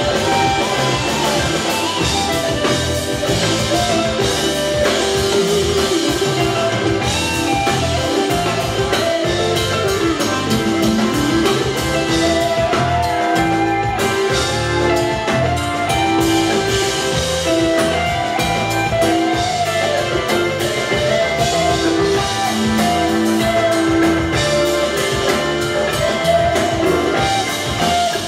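Live jam-band rock played by a full band: drum kit, electric guitar and electric bass, continuous and loud, heard from within the crowd in the room.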